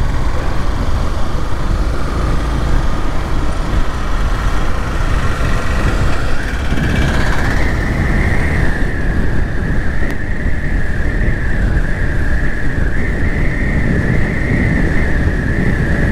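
Riding noise of a Yamaha FZS V3's 149 cc single-cylinder engine under way, heavily mixed with wind rushing over the microphone, a loud steady rumble. About six seconds in, a steady high whine joins it and holds.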